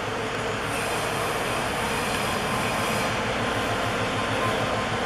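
Diesel-electric locomotive R157 running light along the track, its engine rumbling steadily and growing slightly louder as it approaches.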